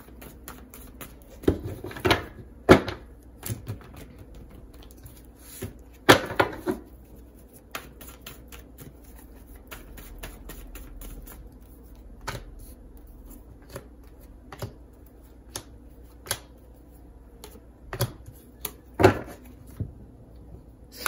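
Tarot cards being shuffled and laid down on a table: irregular sharp snaps and taps, with several louder ones scattered through.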